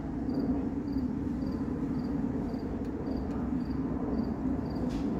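A cricket chirping about twice a second, short high chirps over a steady low hum.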